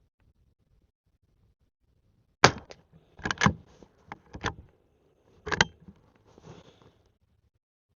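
Henry lever-action .22 rifle with standard-velocity rounds: a sharp shot about two and a half seconds in, metallic clacks of the lever being cycled, and a second sharp shot about three seconds later, followed by a few softer clicks.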